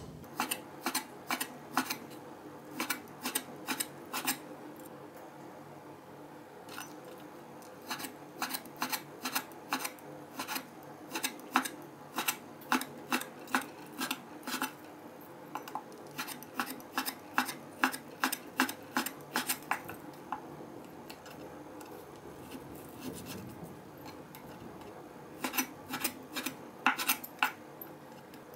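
Chinese cleaver slicing raw beef on a wooden cutting board, the blade knocking the board about two to three times a second in runs, broken twice by a pause of a few seconds.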